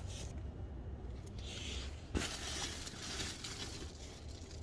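Phone handling and clothing rustle over a low steady hum, with a single sharp click about two seconds in.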